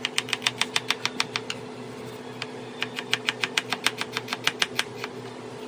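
Chef's knife rapidly chopping red onion on a plastic cutting board: quick, even knocks of the blade on the board, about eight a second, with a pause of about a second in the middle before the chopping resumes. A steady low hum runs underneath.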